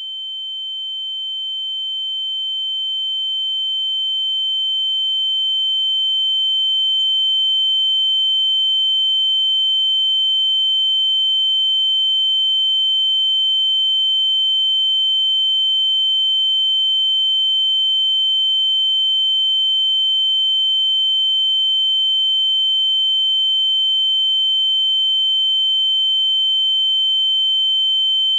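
Synthetic ear-ringing (tinnitus) sound effect: a steady high-pitched electronic tone with a fainter lower tone beneath it, swelling in loudness over the first several seconds and then holding level.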